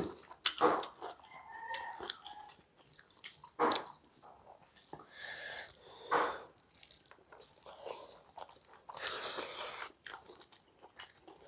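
Close-miked chewing and biting as two people eat rice and vegetable curry by hand, with scattered sharp clicks and a few short hissy bursts.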